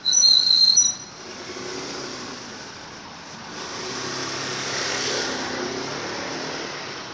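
A sharp, high-pitched squeal lasting about a second, then a motor vehicle passing, swelling and fading over a couple of seconds near the middle.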